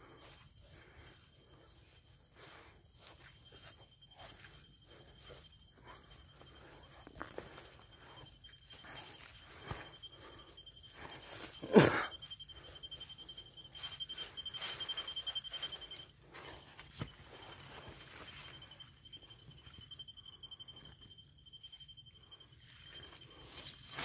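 Footsteps and leaves rustling as someone pushes through a stand of young poplar saplings, with a steady high-pitched insect trill going on throughout. One loud bump of handling noise about halfway through.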